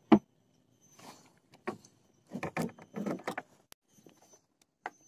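Handling noises from a plastic bucket and fishing tackle. A sharp knock comes right at the start, then scattered knocks and rubbing, busiest in the middle, and one more knock near the end.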